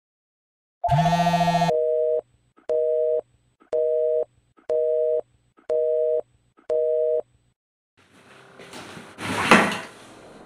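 Telephone busy signal: six evenly paced two-note beeps, about half a second on and half a second off, after a short buzzing tone. Near the end a noisy whoosh swells and drops away.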